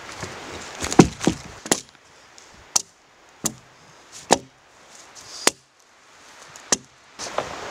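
An axe chopping wood at a felled tree: about eight sharp single strikes, roughly a second apart, the loudest about a second in.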